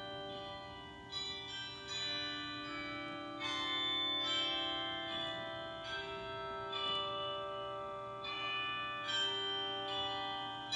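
Slow instrumental music of struck, bell-like notes that ring on and overlap, about one new note a second.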